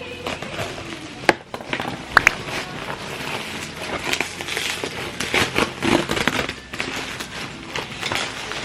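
Packaging crinkling and rustling with sharp irregular clicks and knocks as a ring light's tripod is unpacked and handled.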